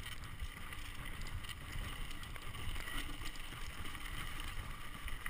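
Mountain bike riding down a dirt trail: a steady rumble of tyres on the ground with wind on the microphone, and short rattles and ticks from the bike as it goes over bumps.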